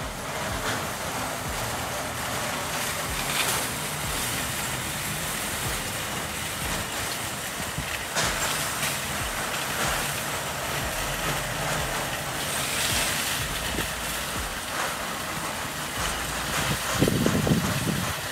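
Steady rattling and clattering of a long line of metal shopping carts being pushed across asphalt, with traffic noise under it and a louder low rumble near the end.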